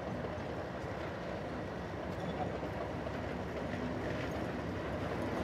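Class 37 diesel-electric locomotive's English Electric V12 engine running steadily as the loco approaches slowly, growing a little louder.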